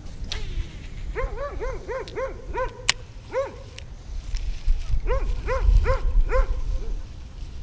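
An animal's short, pitched calls, each rising and falling, in two quick runs: about eight calls starting about a second in, then about five more after a short pause.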